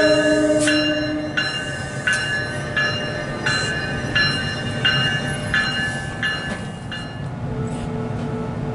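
NJ Transit commuter train pulling into a station: its horn chord cuts off about a second in, then the locomotive bell rings steadily, about three strikes every two seconds, over the low rumble of the multilevel coaches rolling in. The bell stops about seven seconds in as the train halts.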